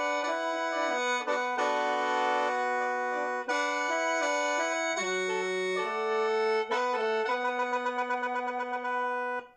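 Khaen, the Lao bamboo free-reed mouth organ, being played: several reeds sound together, with lower notes held under a quick-moving melody. Near the end the notes pulse about four times a second, then the playing stops abruptly.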